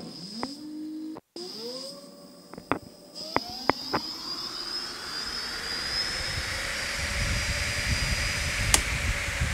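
Electric bicycle hub motor spinning its wheel up under throttle with no load: a whine that rises in pitch in two steps over the first two seconds, then holds steady, with a few ticks. A rushing of air from the fast-spinning spoked wheel grows louder, and there is one sharp click near the end.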